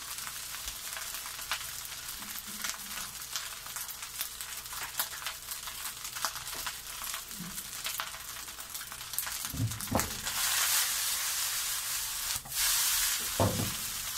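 Fried rice sizzling in a wok over a gas flame, a steady hiss peppered with small crackles. The hiss swells for a few seconds about two-thirds of the way in, and there are a couple of dull knocks.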